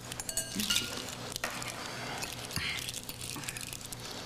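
Cutlery tapping and scraping on china dessert plates, with a few scattered light clinks over a steady low hum.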